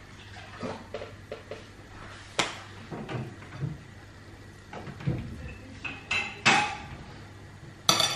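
Metal spoon scraping and clinking against a ceramic bowl while scooping cottage-cheese filling, with a few sharp clinks spread through and one near the end.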